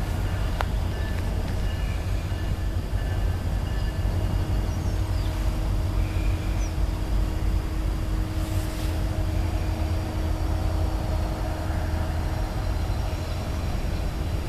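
Diesel freight locomotives running in the distance as a train approaches: a steady low rumble with a faint steady hum.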